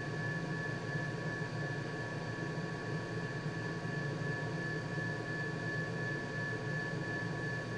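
Steady mechanical hum and hiss from a running machine, with a constant high-pitched whine over it and no changes.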